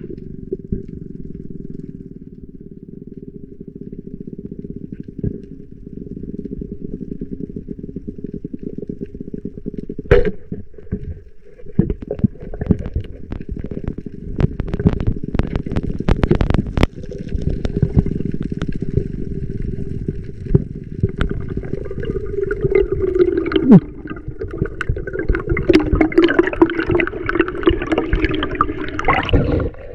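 Muffled underwater noise of a spearfishing dive: a steady dull rumble with water gurgling, a run of sharp knocks from about ten seconds in, and brighter splashing and bubbling near the end.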